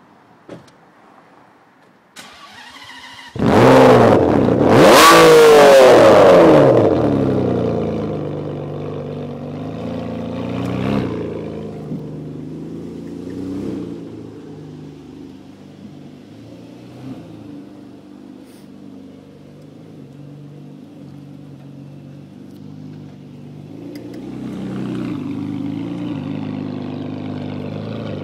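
Ferrari 599 GTB Fiorano's V12 engine starting: a short crank, then it catches with a loud flare of revs that rises and falls twice before settling into a steady high idle with a couple of light blips. It grows louder again near the end.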